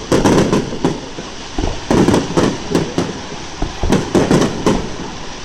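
Fireworks barrage (star mine): clusters of aerial shells bursting in quick succession, several bangs at a time, in groups about every one to two seconds.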